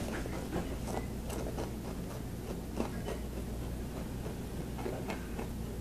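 Faint scattered small clicks and crackles over a steady low hum.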